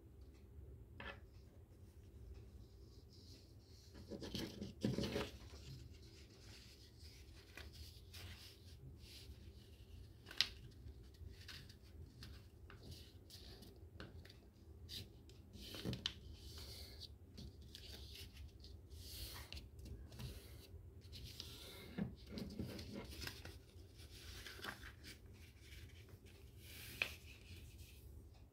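Sheets of paper being handled, folded and creased by hand, with scattered short rustles and crinkles and a few sharp taps; the loudest rustling comes about four to five seconds in. A faint low hum runs underneath.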